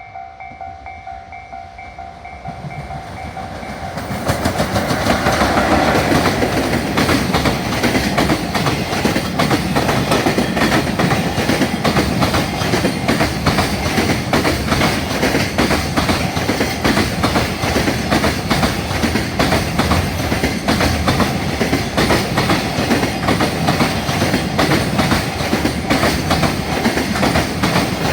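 A level-crossing warning bell ringing in a repeating tone, then a long freight train arriving about four seconds in and passing at speed. Its wheels clatter over the rail joints in a rapid, steady rhythm that drowns out the bell.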